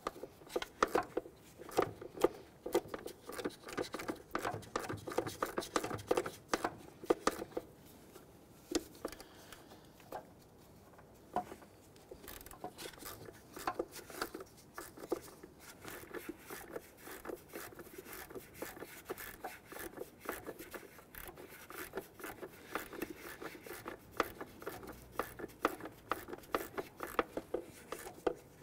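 Ratchet wrench clicking in quick runs with short pauses, backing out the 10 mm bolts on the upper cam gear cover, with a lull of a few seconds partway through.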